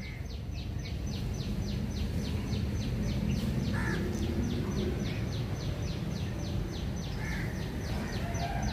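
Outdoor background noise: a steady low rumble, with a high chirp that repeats evenly about five times a second, and a couple of faint bird calls.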